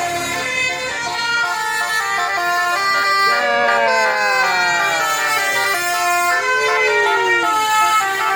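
Telolet basuri musical bus horns playing a tune of held, stepped notes. Several notes slide downward in the middle, and one swooping note rises and falls near the end.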